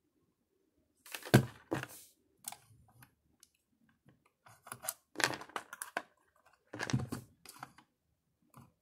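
Irregular plastic clicks and knocks as a pencil is pushed into an X-ACTO Mighty Mite electric pencil sharpener and the sharpener is handled, with no motor running. The sharpener will not start, which the owner thinks is its safety switch.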